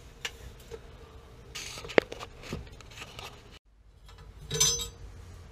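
Handling noises from work on copper pipe fittings: scattered light ticks, one sharp click about two seconds in, and a short scraping rustle near the end.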